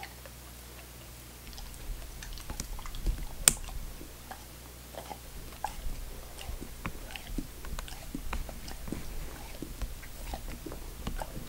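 Treeing Walker Coonhound chewing Skittles candy: irregular crunches and mouth clicks starting about a second and a half in, with one sharp crack about three and a half seconds in. The dog licks its lips near the end.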